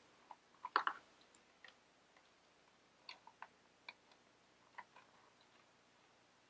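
Faint, scattered clicks and light rustles of a cat toy's card-backed packaging being opened by hand. The strongest come in a small cluster just under a second in.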